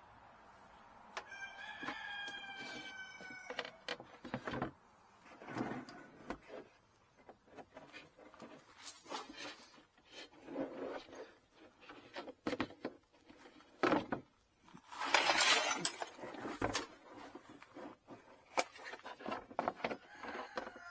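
A rooster crows once about a second in, a drawn-out call lasting a couple of seconds. Irregular knocks, clicks and rustling follow, with a louder scraping, rustling patch about fifteen seconds in.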